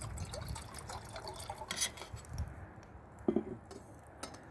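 Water being poured into a container, with splashing and dripping for the first couple of seconds, then a short clink about three seconds in.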